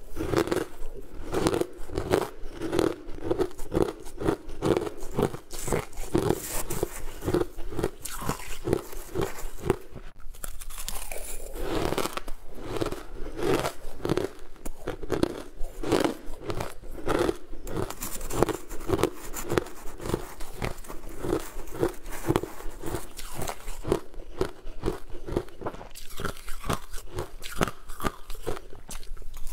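Shaved ice being chewed close to the microphone: a steady run of crisp crunches, about three a second, with a brief lull around ten seconds in.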